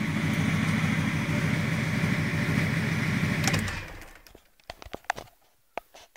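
BMW M57 straight-six turbodiesel idling with an even beat. It dies away about four seconds in, as if switched off, and a few light clicks follow.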